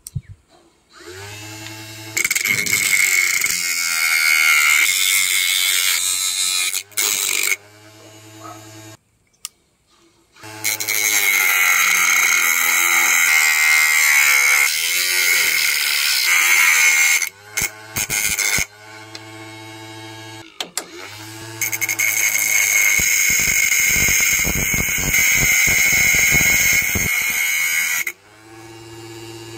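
A homemade angle grinder driven by an RS775 brushed DC motor, its 4-inch metal cutting disc whining at speed as it cuts through PVC, then a wooden strip, then a metal rod. The cutting comes in three long bursts with short pauses between them.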